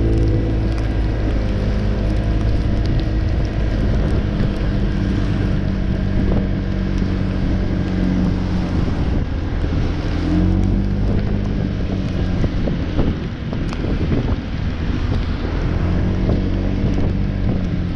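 Honda PCX 125 scooter's single-cylinder four-stroke engine running on the move, its note rising as it speeds up about ten seconds in. Wind buffeting the microphone and tyre hiss on the wet road.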